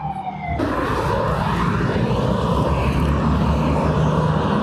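A siren's falling wail breaks off about half a second in. Steady, loud vehicle noise with a constant low hum follows.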